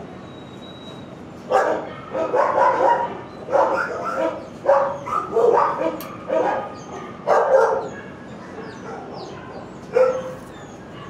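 Dog barking repeatedly in animal-shelter kennels: a quick run of barks for about six seconds, then one more bark near the end.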